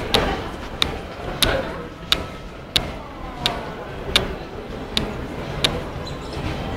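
Sharp clicks or claps in an even rhythm, about three every two seconds, over steady background noise.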